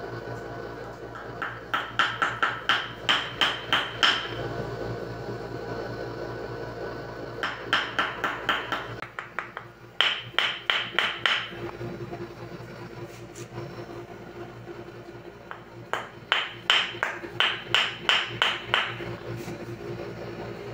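A wooden mallet rapidly striking a wooden rod held against the spine and neck, a percussive chiropractic adjustment of the vertebrae. The knocks come in four quick runs of about seven to ten, roughly three or four a second, each with a short ring.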